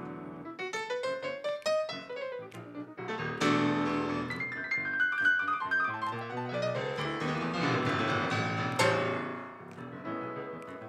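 Grand piano played solo: fast runs up and down the keyboard between loud, full chords, one about a third of the way in and another about three-quarters through.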